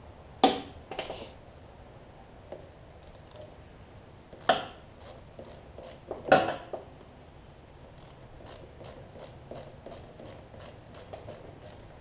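A ratcheting wrench clicking in short runs, about three or four clicks a second, as it backs off a bolt, broken by three louder knocks of metal tools being handled.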